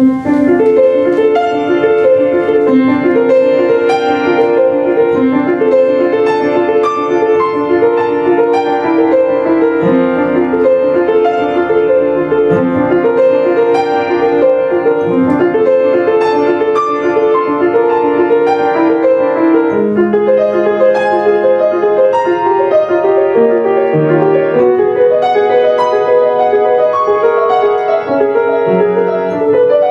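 Grand piano played solo: a fast, flowing piece of quick, evenly running notes that begins right at the start.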